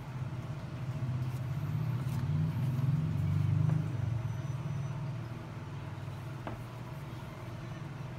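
Foredom SR flexible-shaft motor, run from a foot-pedal speed control, humming steadily as it spins the shaft and handpiece. It gets louder over the first few seconds, peaks about four seconds in, then eases back to a lower steady hum.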